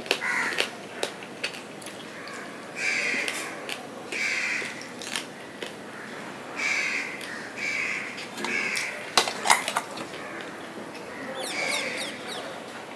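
Close-miked wet chewing and lip-smacking of a mouthful of polao rice, with sharp clicks and scrapes of fingers on a steel plate as the rice is mixed by hand; the loudest clicks come about two thirds of the way through.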